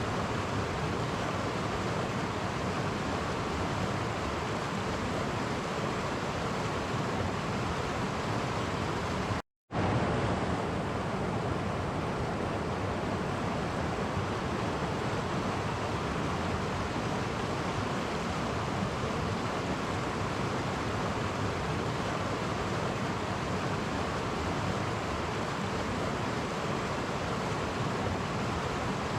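Clear stream rushing over small cascades: a steady, even wash of flowing water. The sound cuts out completely for a fraction of a second about nine and a half seconds in, then resumes unchanged.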